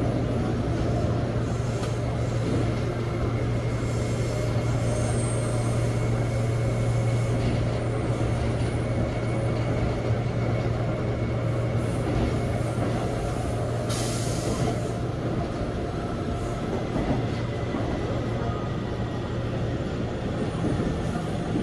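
Busan Subway Line 1 train running along elevated track, heard from inside the front of the train: steady running noise with a strong low hum and faint high tones. A brief high hiss comes about fourteen seconds in.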